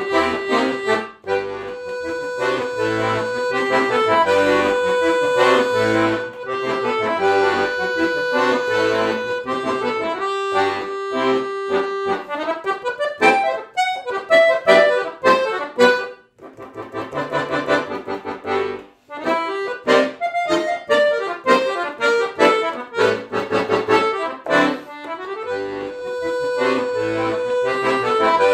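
Solo piano accordion playing a lively piece: held chords over a pulsing bass, then quick short notes and a passage of rapid repeated notes in the middle, and held chords again near the end.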